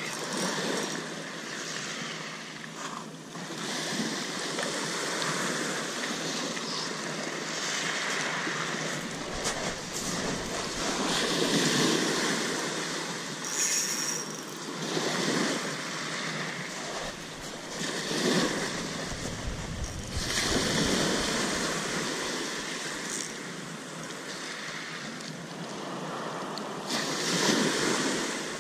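Small waves breaking and washing against a wooden groyne, the surf rising and falling in surges every few seconds.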